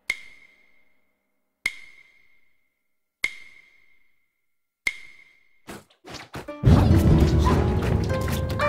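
Four sharp, evenly spaced strikes about a second and a half apart, each leaving a short high ring. A quick run of faster clicks follows, then a loud burst of dense soundtrack music with impacts starts near the end.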